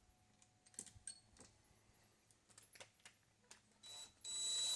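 Small metal clicks and clinks of sockets and hand tools being handled, then near the end a short, louder hissing burst lasting under a second.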